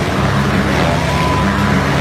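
Two or more motorcycles riding laps inside a steel-mesh globe of death, their engines running hard in a loud, steady drone.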